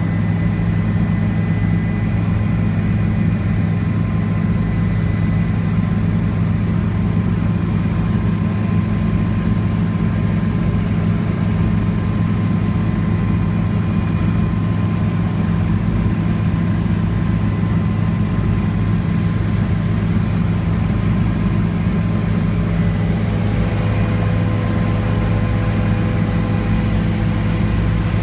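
Helicopter engine and rotor noise heard inside the cabin in flight: a loud, steady low drone with a few constant higher tones.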